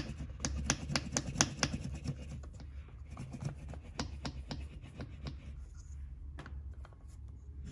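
Milk being frothed in a French press: the plunger is pumped quickly up and down, clicking about four times a second, then slowing to occasional clicks about halfway through.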